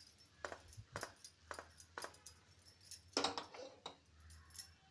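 Stainless steel kadai shaken and tossed on a gas stove's grate to mix fried rice, giving a series of metal knocks and clatters about twice a second, with the loudest clatter about three seconds in.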